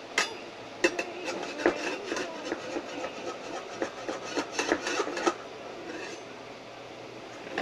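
A spatula scraping and knocking against a small metal pot on a toy stove: an irregular clatter of taps and scrapes that stops about five seconds in.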